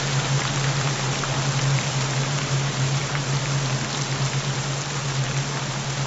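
Steady rain: a dense even hiss with scattered drop ticks, layered with a low steady binaural-beat tone.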